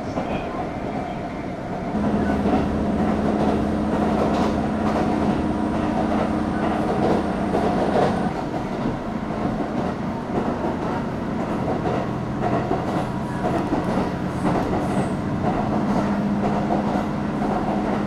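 Passenger train running, with steady rail and running noise. A steady low hum comes in about two seconds in, and the sound grows louder from then on.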